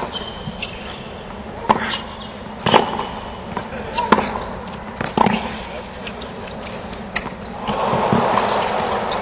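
Tennis rally on a hard court: the ball cracking off the rackets and bouncing about once every second or so, with the crowd hushed. Near the end the crowd breaks into applause and cheers as the point ends.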